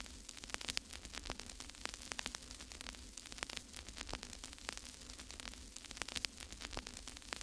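Irregular crackling static with scattered pops over a steady low hum.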